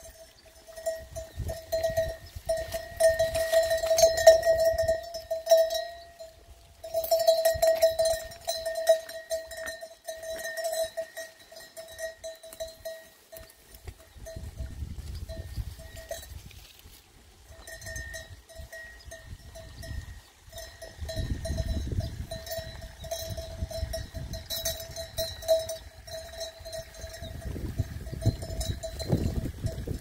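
Livestock bells ringing and jangling continually on a moving flock, pausing briefly about six and seventeen seconds in, with low rumbling now and then.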